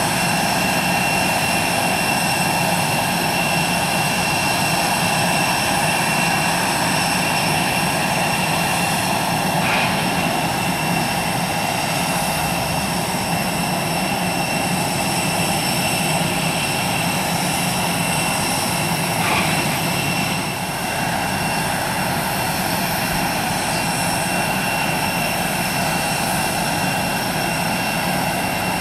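Airbus A319 jet engines running under power close by: a steady rushing jet-blast noise with a high, steady whine over it.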